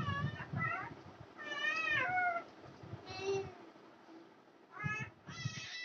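A run of several high, wavering cries, each half a second to a second long, most of them falling in pitch, with short gaps between.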